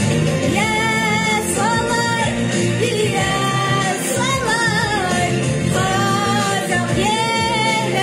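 A woman singing a song in long held notes over an instrumental backing track.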